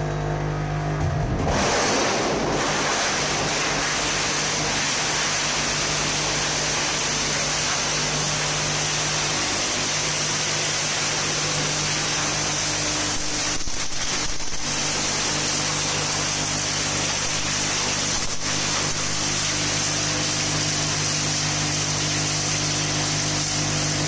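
Plastic crusher grinding a blue HDPE drum. A steady motor hum runs throughout, and about a second and a half in the rotor blades bite into the barrel, starting a loud, dense grinding of shredding plastic that then goes on steadily.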